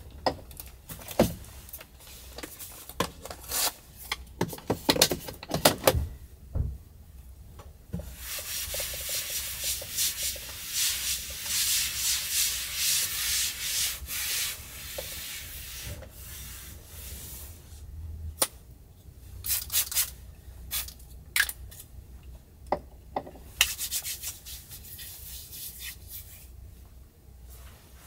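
A tabletop being wiped by hand, with long stretches of rubbing strokes across the surface between bouts of clicks and rustles from handling small items.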